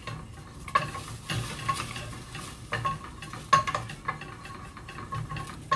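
Wooden spoons scraping and stirring in irregular strokes against the bottom of a hot stainless steel pot. Leftover rinse water sizzles faintly as it dries off the heating pot.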